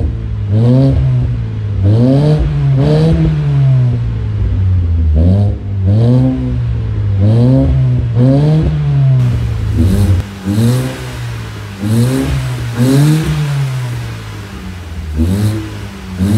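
A 2013 Ford Focus's engine heard through an aftermarket axle-back exhaust with dual exits, revved in repeated throttle blips: the pitch rises and falls about once a second, a few blips held a little longer, between short drops back toward idle.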